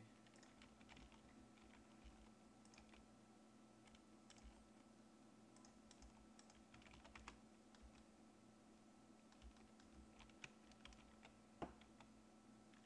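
Faint, scattered computer keyboard keystrokes tapped now and then, over a low steady hum of background noise.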